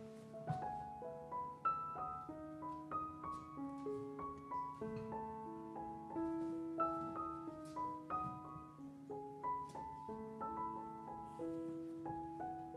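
Background piano music: a melody of single notes stepping up and down over a held low note.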